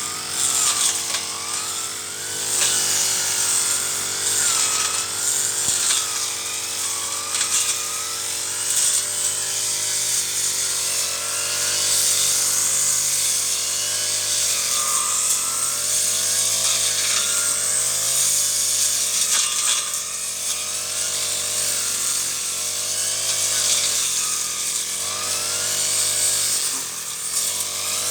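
Brush cutter engine running hard, its pitch dipping and recovering again and again as the blade takes the load of cutting through weeds.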